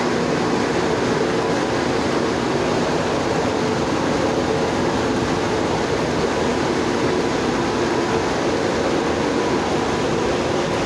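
Coal pulverizer unit running: a steady, even mechanical hum and rush with a few faint held tones, unchanging throughout.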